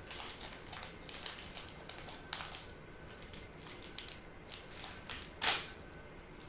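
Foil wrapper of a Pokémon card booster pack crinkling and tearing as it is opened by hand: a run of short, irregular crackles with one louder crackle about five seconds in.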